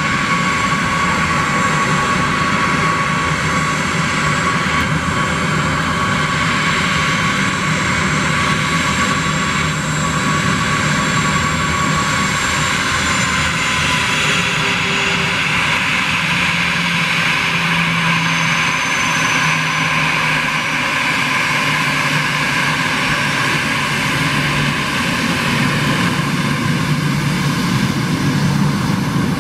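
Airbus A320 jet engines running at taxi power: a steady, loud jet noise with high whining tones that dip slightly in pitch about halfway through.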